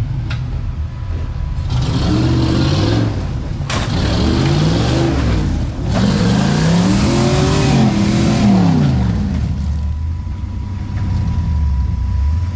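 Off-road rock crawler's engine revving in repeated surges, pitch climbing and falling, as the vehicle is driven up a rock ledge on the trail.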